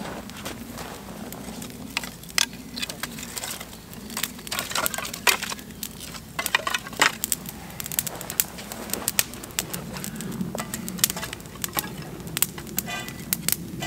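Wood fire crackling, with irregular sharp pops and snaps.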